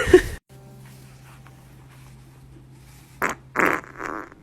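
A person farting: a quick run of short farts about three seconds in.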